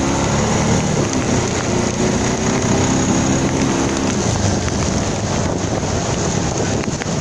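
Bajaj Pulsar 220's single-cylinder engine running under acceleration, its drone strongest in the first few seconds, mixed with heavy wind noise on the microphone and the hiss of tyres on a wet road.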